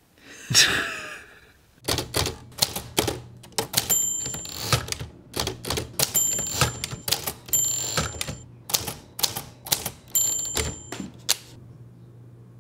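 A manual typewriter typing: an uneven run of sharp key strikes, several a second, with a few short high rings among them. The typing stops about a second before the end. Just before it starts there is a brief breathy noise.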